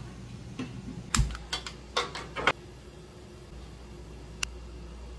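Stainless steel kitchenware knocking and clinking: a quick, irregular run of sharp clicks and knocks from about a second in to two and a half seconds, then one more click near the end.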